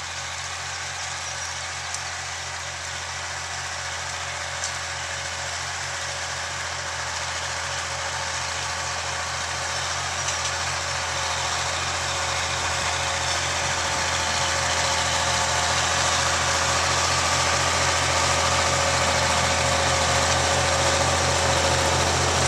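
Old farm tractor engine running steadily as it pulls a tiller through the soil, growing steadily louder as it approaches.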